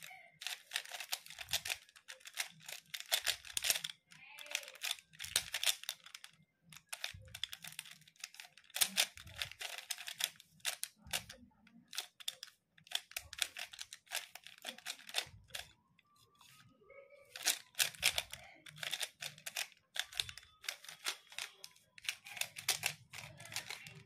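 Plastic 3x3 Rubik's cube being turned fast by hand: rapid runs of clicking and clacking as the layers snap round, in bursts with short breaks and a longer pause about two-thirds of the way through.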